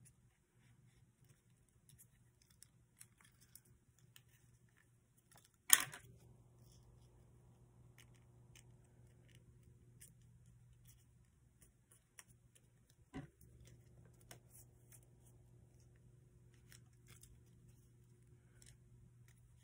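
Paper being creased and shaped by hand, with faint rustling and scattered small ticks. Two sharp clicks stand out, a loud one about six seconds in and a smaller one about thirteen seconds in, over a low steady hum.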